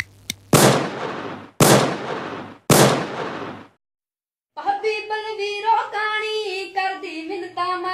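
Three loud gunshot-like bangs about a second apart, each echoing away over about a second. After a short silence, a girl starts singing about four and a half seconds in.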